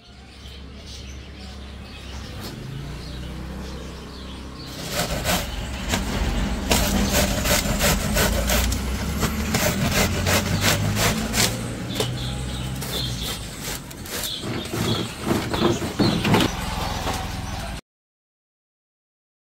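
Vegetables scraped in quick, irregular strokes against a stainless steel box grater over a steel bowl, over a steady low hum. The grating starts about five seconds in and cuts off suddenly near the end.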